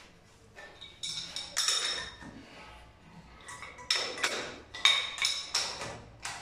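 Steel adjustable wrench clinking against a chrome shower mixer tap and its wall unions as it is fitted onto the nuts and turned: a series of sharp, ringing metallic clinks, the first about a second in and most coming in quick succession in the second half.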